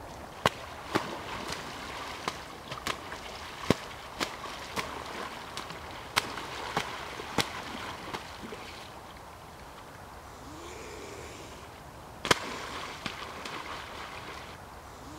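Mute swan thrashing in the water, its wings slapping the surface in sharp smacks about twice a second, with splashing in between; the slaps stop for a few seconds, and one more comes near the end.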